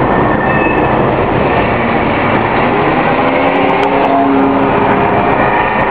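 Ferrari 360 Modena's V8 engine running, with steady road and engine noise inside the cabin while driving; an engine note climbs in pitch and settles from about three seconds in.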